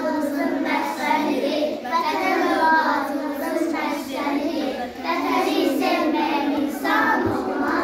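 A class of young children chanting a poem together in unison, their voices continuous and steady.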